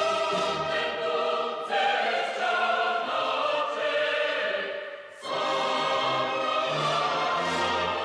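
Choral music with orchestra in long held chords, dropping away briefly about five seconds in before coming back.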